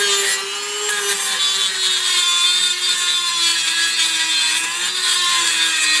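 Craftsman variable-speed rotary tool running at high speed, its grinding stone grinding down the head of a steel car door hinge pin. A steady high whine over a grinding hiss, dipping a little in pitch about three seconds in.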